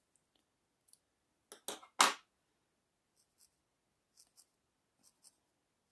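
Scissors cutting a strand of wool yarn, with a couple of sharp snips about two seconds in. After that, faint soft ticks in pairs, about one pair a second, from a felting needle jabbing into the wool heart.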